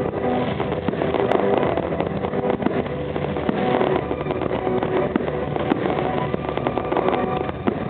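Competition fireworks display bursting and crackling without a break, a dense run of pops and cracks over a continuous rumble, with short held tones at several pitches.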